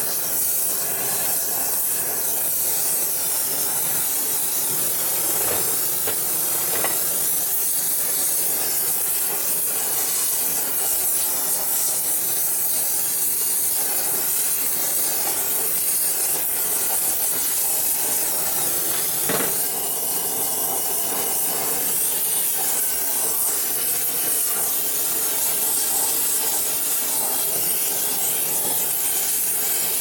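Gas torch flame hissing steadily while preheating a welded case so it won't crack when welded. A couple of faint clicks sound in the middle.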